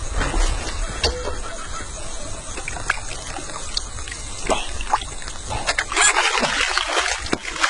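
Water pouring and splashing from a bucket bush shower onto a person, the spray hissing louder near the end, with scattered small splashes and clicks.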